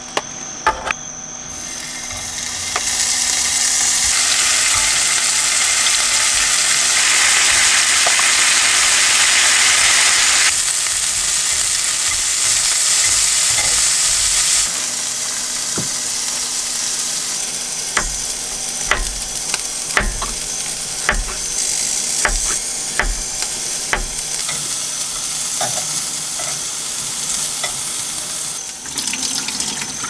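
Food sizzling on a grill pan over a portable gas stove, loud from a couple of seconds in and dropping to a quieter sizzle about halfway. Over the softer hiss in the second half come a series of light knocks and clicks.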